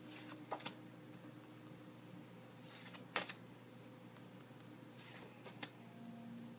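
Pen and paper index cards being handled on a wooden desk: faint scratching of writing and a few small taps, the sharpest about three seconds in.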